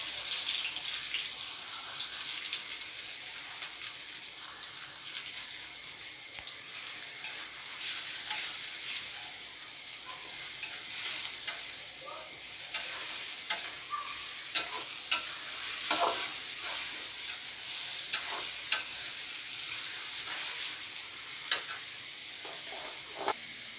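Chopped onions sizzling as they fry in a pan. They are stirred, with scattered sharp clicks of the spoon against the pan, more of them in the second half.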